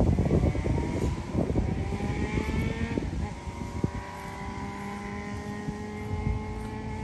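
A motor vehicle's engine hum whose pitch sinks slowly, with wind buffeting the microphone for the first three seconds.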